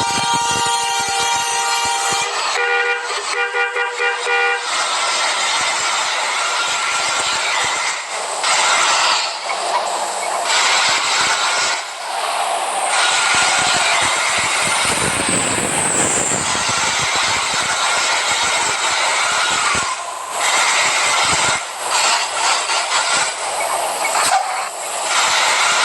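A bus's multi-tone air horn sounding two long chord blasts, the second ending about four and a half seconds in, followed by a loud, dense rushing noise with no clear pitch for the rest.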